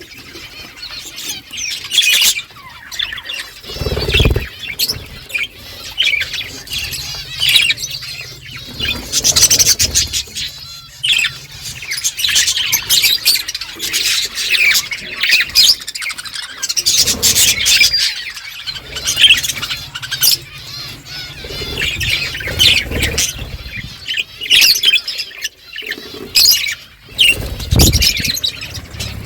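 A flock of budgerigars chattering, with dense, overlapping chirps and squawks throughout. A couple of low thuds, about four seconds in and near the end.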